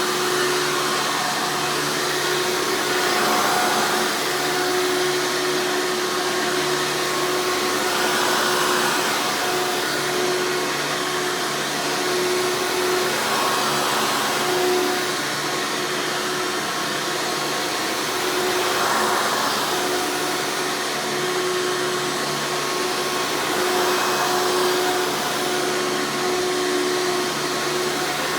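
Hoover Encore Supreme U5059-930 upright vacuum running steadily with a motor whine, swelling slightly every few seconds.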